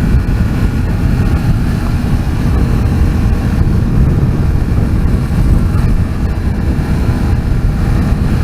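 Wind rushing over the microphone and a Yamaha FZ-07's parallel-twin engine running while the motorcycle is ridden, as a steady low rumble.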